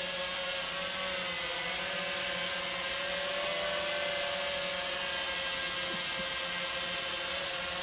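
Small quadcopter drone's electric motors and propellers buzzing steadily as it flies low nearby, the pitch wavering slightly as it manoeuvres.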